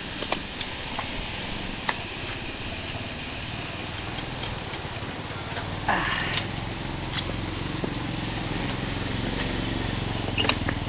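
Steady rumble of wind on the microphone and tyre noise from a mountain bike rolling along a paved road, with a few sharp clicks and a brief falling squeal about six seconds in.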